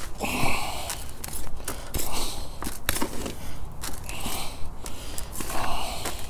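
Hand trowel scraping and stirring through a potting mix of manure, ericaceous soil, peat and compost in a flexible plastic tub. The scrapes come one after another, about once a second at uneven intervals, with a few small knocks.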